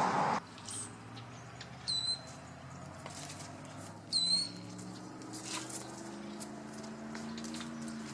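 A loud rushing noise cuts off about half a second in. Then come three short, high, squeaky chirps, one to two seconds apart, over faint scattered clicks and a low hum in the second half.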